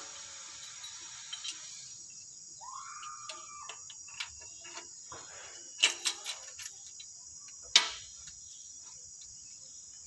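Scattered light metallic clicks and clinks of hand tools and parts being fitted on an engine's cylinder head, loudest in a quick cluster about six seconds in and once near eight seconds. A steady high-pitched drone runs underneath, with a brief squeak about three seconds in.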